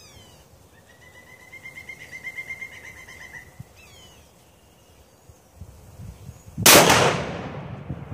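.700 Nitro Express double rifle fired once: a single loud shot about two-thirds of the way in, its echo trailing off.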